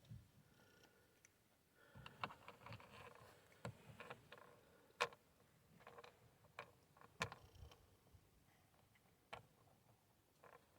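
Faint, scattered clicks and knocks of plastic door-trim pieces being handled and pressed into place, the sharpest about five and seven seconds in.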